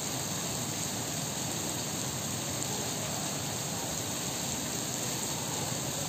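Steady rain falling on paving and grass, an even hiss with no distinct drops or other events.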